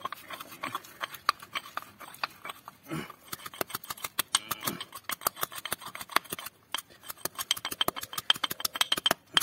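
A metal spoon pounding a wet fruit-and-spice mix in a small pot: quick, steady taps and knocks, several a second, as the masala is crushed into a chutney.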